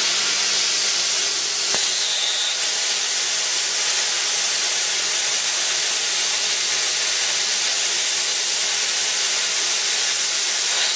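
Plasma cutter torch cutting 3 mm steel plate at a low 15 amps: a loud, steady hiss of the air and arc that starts abruptly as the arc strikes. The machine is a cheap 40-amp high-frequency-start plasma cutter.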